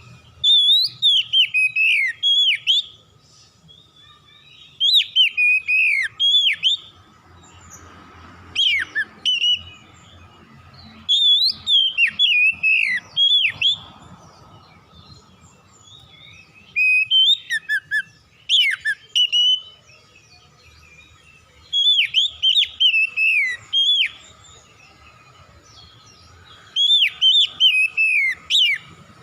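Oriental magpie-robin (kacer) singing loudly: seven bursts of quick, varied whistled notes, each a couple of seconds long, with pauses of a few seconds between them.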